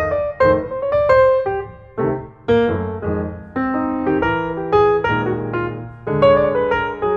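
Background piano music: a melody of single notes over held chords at a moderate pace.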